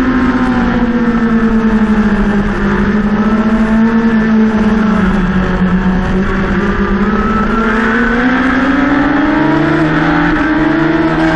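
Racing motorcycle's engine heard from the bike itself at high revs, with wind rush. Its pitch sinks slowly while the bike is held leaned over through a long corner, then climbs steadily as the rider opens the throttle and stands the bike up onto the straight.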